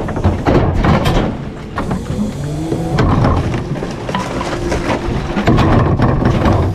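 Garbage truck engine running loudly, with repeated metallic clanks and knocks and a steady whine held through the middle seconds.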